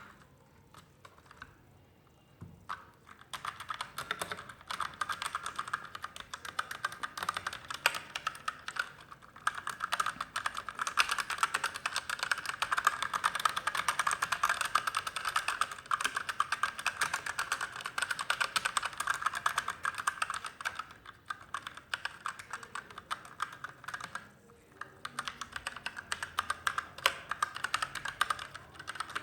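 Typing on a Magegee MK-Star 87-key mechanical keyboard with red linear switches. A few scattered keystrokes at first, then fast continuous key clacking from about three seconds in, with short pauses around 21 and 25 seconds in.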